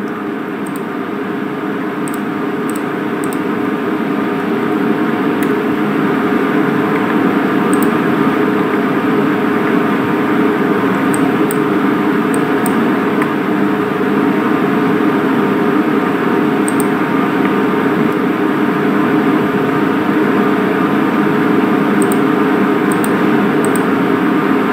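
Steady mechanical hum with several held tones, rising in level over the first few seconds and then holding, with a few faint, brief high ticks scattered through it.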